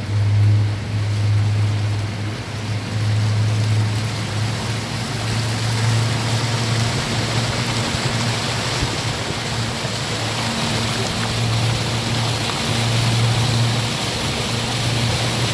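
A tour boat's motor running steadily under way, a low even hum, with water rushing past that grows louder about six seconds in as the boat moves along the river.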